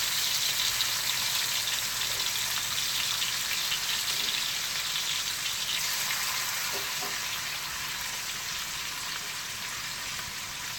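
Diced raw chicken sizzling as it fries in hot oil in a wok, the sizzle easing slightly towards the end.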